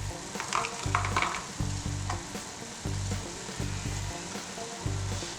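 Minced meat and onion sizzling in oil in a pan, with a few clicks and scrapes of a utensil stirring it about a second in.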